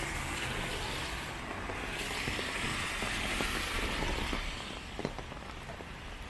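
Steady rain with car tyres hissing on a wet road as traffic passes. The hiss swells and then eases about four and a half seconds in, leaving the rain and a few light ticks.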